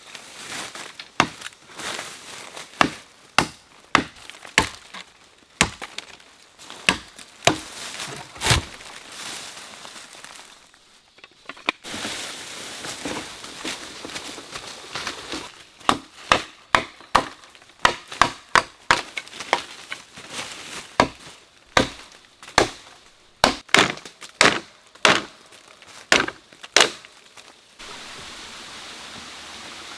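A blade chopping wood, many sharp strikes at an uneven pace, about one every half second to a second. A steady rush of running water takes over near the end.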